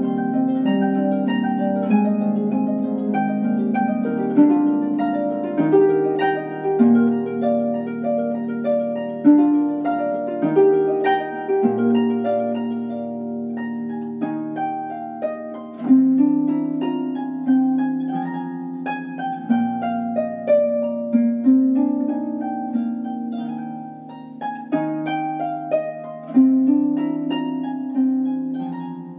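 Modern pedal harp playing a lively classical-era sonata movement. The melody has quick plucked runs and figures over a steady repeated broken-octave bass.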